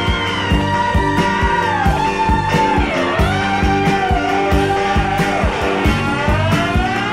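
Rock music with a lead guitar holding long notes that slide and bend in pitch, over a steady drum beat.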